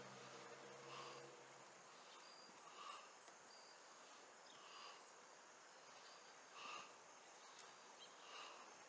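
Faint outdoor ambience: a short chirp repeating about every two seconds over a quiet hiss, while a passing vehicle's engine fades out in the first second and a half.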